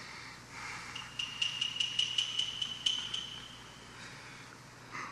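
A quick run of light clicks, about five a second for two seconds, over a thin high ringing tone that fades away.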